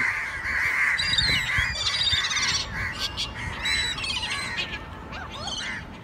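A flock of gulls calling constantly, many short cries overlapping, with a few higher calls among them.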